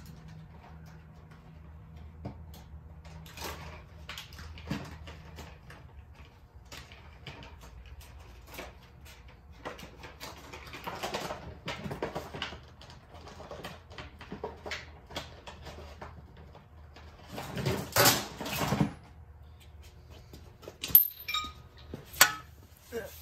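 Hand tools being handled while a socket and adapter are fetched: scattered metallic clinks and knocks over a low steady hum, with a louder scraping rattle lasting about a second about three-quarters of the way through, then a couple of sharp clicks.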